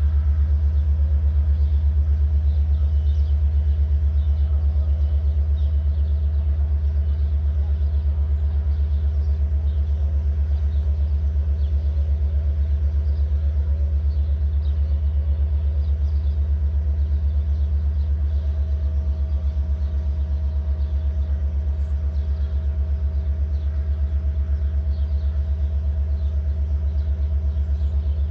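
Diesel locomotive standing and idling: a steady, loud low rumble with a fine regular pulse and a faint steady hum above it.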